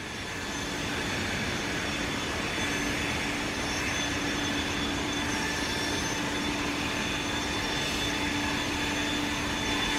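EGO battery-powered leaf blower running steadily at its normal speed, not on turbo: a steady rush of air that swells over the first second, with a faint steady hum.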